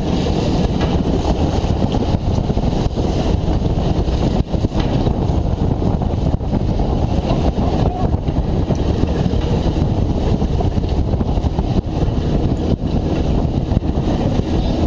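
Steady low rumble and rush of a fishing boat at sea, with wind buffeting the microphone.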